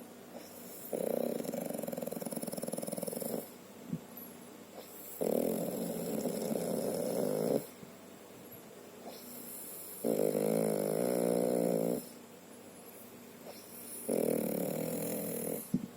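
A person snoring loudly: four long, rattling snores about four to five seconds apart, the third one wavering in pitch, with quieter breathing in between. The snoring is likened to a motorbike engine about to stall.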